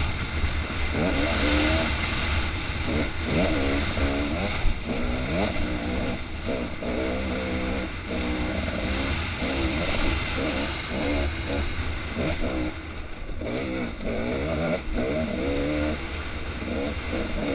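Dirt bike engine revving up and down over and over as the throttle is worked on a rocky trail, with a sharp knock about five seconds in.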